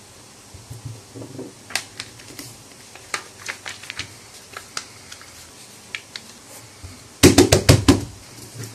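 A sheet of paper being folded by hand on a desk: scattered light taps and crinkles, then, about seven seconds in, a quick, loud run of strokes as the fold is pressed and creased flat.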